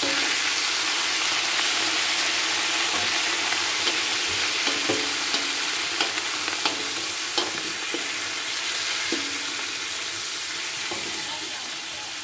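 Raw chicken pieces sizzling in hot oil in a metal wok, the sizzle starting suddenly as the chicken goes in and easing slightly toward the end. A wooden spoon stirs the pieces, knocking against the wok several times.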